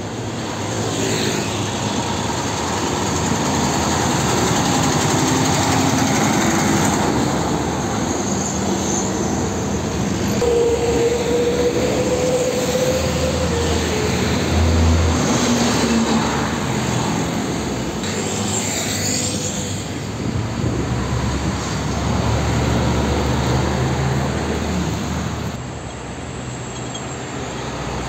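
Heavy diesel trucks, Nissan Diesel and Hino among them, passing close by one after another on a highway: engines and tyre noise on the asphalt, swelling and fading as each vehicle goes by.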